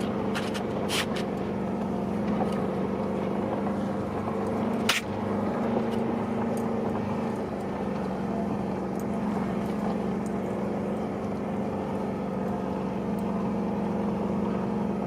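Ford F-150 pickup's engine running steadily at low speed as the truck crawls up a rough mountain trail. A single sharp knock is heard about five seconds in.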